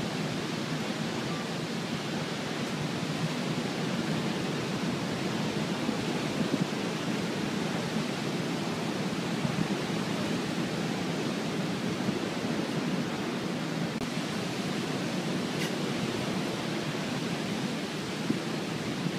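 Steady rushing storm noise from Hurricane Sandy, with wind and water blended into one even roar that holds without a break.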